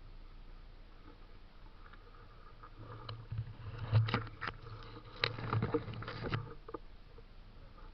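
A run of irregular knocks and rattles over a low rumble, starting about three seconds in and lasting about three seconds, with the sharpest knock near the start.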